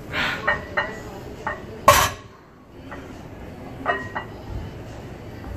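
Heavy barbell loaded to 405 lb during a deadlift set: iron plates clinking and rattling on the bar, and about two seconds in the loaded bar lands on the floor with one loud clang.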